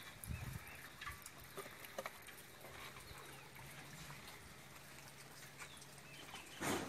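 A faint, steady low engine hum with scattered small clicks and short chirps. Near the end comes a brief loud rush as the well bucket's load of wet mud is tipped into the steel tractor trailer.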